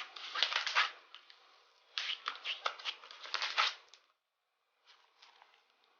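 Clear slime being squished and kneaded by hand, giving bursts of sticky crackling clicks as air pockets pop. There is one burst at the start, a longer one from about two seconds in, and fainter clicks near the end.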